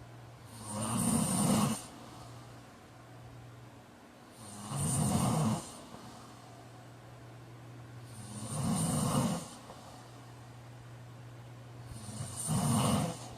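A man snoring in his sleep: four snores, each lasting about a second, at a slow, even pace of one every four seconds or so.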